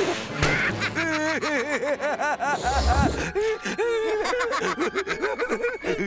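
Cartoon character laughing: a run of quick, nasal, bird-like "ha-ha" notes, about four a second, repeated in strings.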